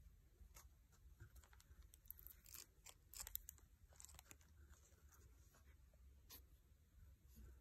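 Near silence: room tone with faint, scattered clicks and scratches, bunched a couple of seconds in and once more near the end.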